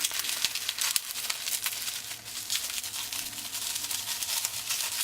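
Plastic wrapping crinkling and rustling in irregular little crackles as a trunk lock is unwrapped by hand.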